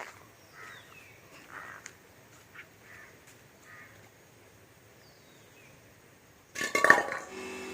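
Faint bird calls in the background, then near the end a sudden loud clatter and a steady electric motor hum: the Bosch AQT 35-12 pressure washer's motor starting up and running.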